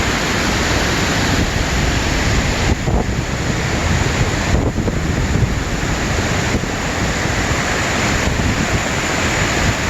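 Štrbački buk waterfall on the Una river: the steady rushing roar of falling water.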